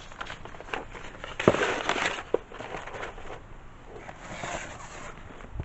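Paper rustling with light knocks and clicks as sheets of activity and coloring pages are handled and put into a box, with the loudest rustle about a second and a half in and a softer one near the end.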